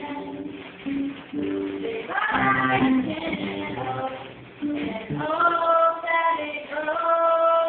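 Young female voice singing a slow melody over plucked guitar accompaniment, holding long notes in the second half.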